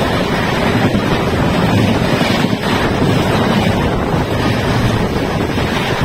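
Indian Railways passenger train running past at speed on the adjacent track, close by: a steady loud rush of wheels on rails and displaced air, with wind buffeting the microphone.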